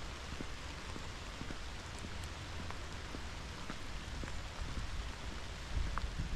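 Cold rain falling steadily, a constant hiss with scattered drops ticking close by.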